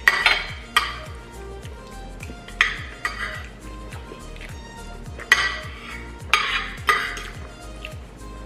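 Metal spoons and forks scraping and clinking against plates while eating, in irregular strokes a second or so apart, the sharpest about five seconds in. Soft background music with a steady beat runs underneath.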